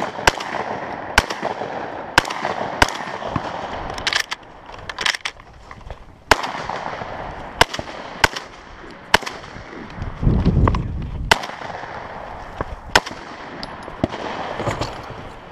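Shotgun fired at steel targets: about a dozen sharp reports at uneven intervals, some in quick pairs. About ten seconds in there is a brief low rumble.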